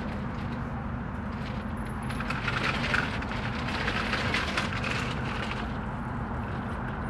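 Steady low rumble of traffic beside a parking lot. From about two to five seconds in, a louder stretch of scratchy, clicking noise rises over it.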